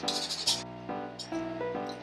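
Background music: a light melody of short, changing notes.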